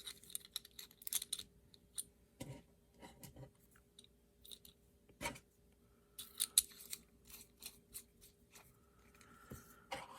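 Scattered small clicks, taps and scrapes of a pen's parts and an ink refill being handled, as the refill is swapped into the pen.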